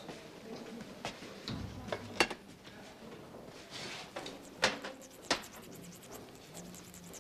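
A handful of sharp clinks and taps, the loudest about two, four and a half and five seconds in: small metal instruments and glass being handled on a steel tray while an injection is prepared.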